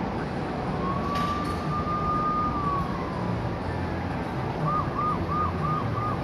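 Electronic siren sound effect from a coin-operated kiddie ride jeep: one slow tone that rises and falls, then near the end a quick repeating chirp about three times a second, over steady amusement-arcade background noise.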